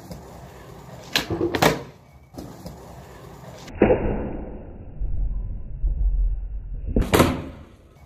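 Skateboard on concrete: a couple of knocks as the board is set up, a sharp pop about four seconds in as a flip trick starts, then wheels rolling, and a loud clack of the board landing about seven seconds in.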